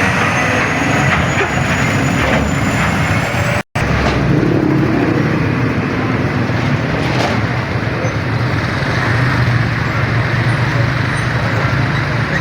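Road traffic noise with a steady engine rumble from passing vehicles. The sound drops out for an instant about four seconds in.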